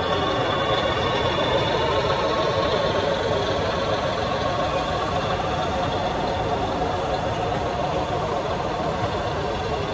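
Remote-control construction models running: a steady engine-like drone with a held whine of small motors.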